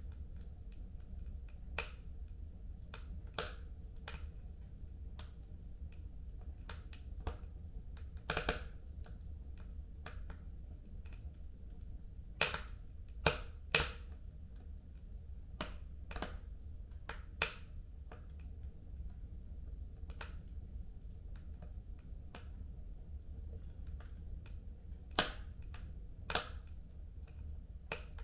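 Wood fire crackling in a home fireplace: irregular sharp pops and snaps over a steady low rumble, with a few louder pops about halfway through.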